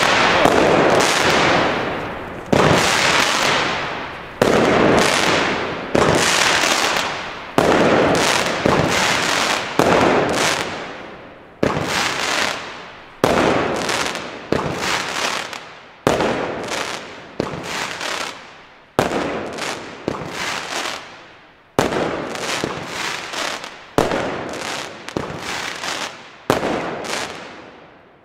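Weco 'Beast Master' 18-shot XXL double-effect fireworks battery firing shot after shot, each sharp report followed by a crackling hiss that fades away. The shots come about every one and a half seconds at first, then quicken to less than a second apart in the second half.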